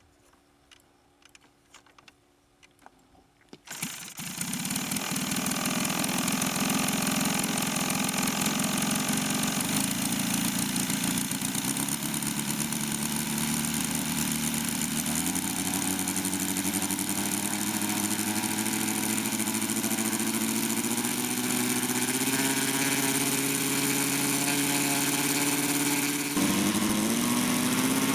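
53 cc four-stroke horizontally opposed gasoline engine of an RC scale model plane starting up after a few light clicks, then running at a slow, steady idle. Its speed rises in small steps, with a quicker climb in pitch near the end.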